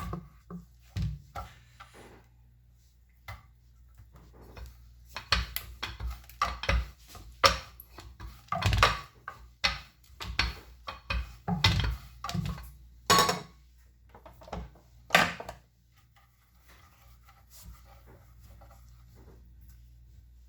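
Rolling pin working dough flat on a board: irregular knocks and rubbing strokes that stop about three-quarters of the way through.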